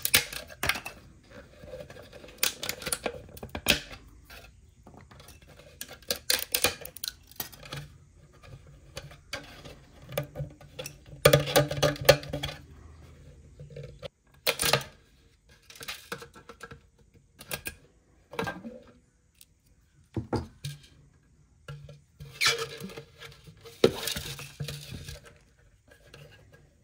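Tree supports being broken off a PLA 3D-printed watering can: sharp plastic cracks and clicks, with the hollow printed can knocking and rubbing as it is turned in the hands. The cracks come thickest about halfway through and again near the end.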